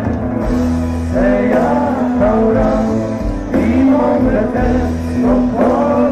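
Live band music with a singer over a steady bass line, played loud.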